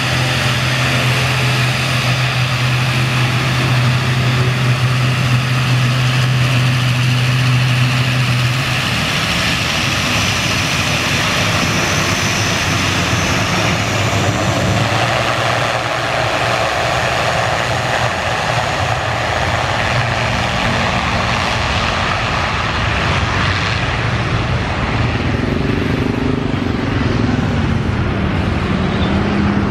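Twin turboprop engines of an ATR 72-600 at takeoff power during its takeoff run: a loud, steady roar. For about the first nine seconds a strong low hum rides over it, then it stops.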